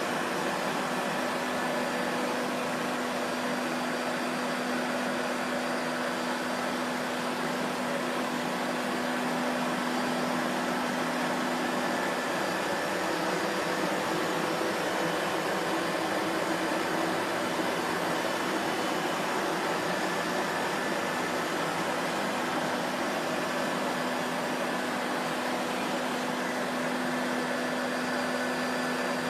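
Vacuum cleaner running steadily, a constant motor whoosh with a low hum and no change in pitch or level.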